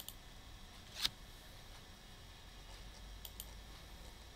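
Computer mouse clicking: a sharp click about a second in and a quick double-click a little after three seconds, over faint room hiss.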